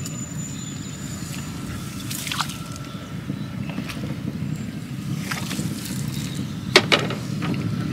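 Water sloshing and dripping as set lines are handled in shallow water, with a few sharp knocks, the loudest near the end, over a steady low rumble.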